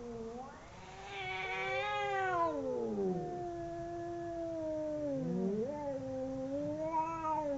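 Two cats caterwauling in a fight standoff: long, drawn-out, wavering yowls that slide up and down in pitch. One howl rises to a high pitch about two seconds in and then sinks low, and another swoops back up near the end.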